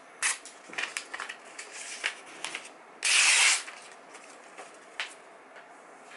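A freshly sharpened Zwilling kitchen knife slicing through a glossy catalogue page, the usual paper test of a sharp edge. Short crisp cutting strokes and paper rustling come first, then one longer, louder slicing hiss about three seconds in, and a light click near the end.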